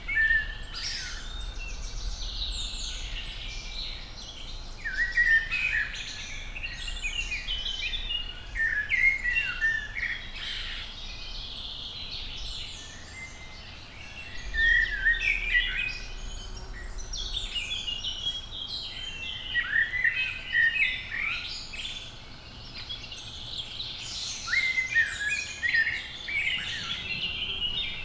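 Woodland songbirds singing, with several birds' quick chirps and whistled phrases overlapping throughout.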